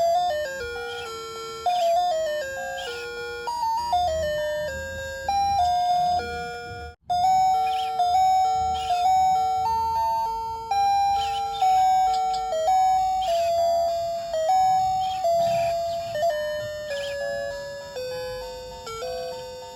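Seiko QM741W alarm clock playing its electronic chime melodies in two-part harmony, each note struck and dying away. One tune stops about seven seconds in, and after a brief break the next tune begins.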